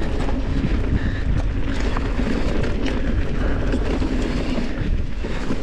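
Mountain bike riding down a dirt trail: tyres rolling and crunching over the ground, with the bike rattling over bumps and wind rumbling on the microphone.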